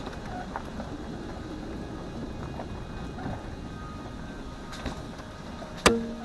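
Vehicle driving over a rough back road: a steady rumble with scattered light rattles, and one sharp knock near the end.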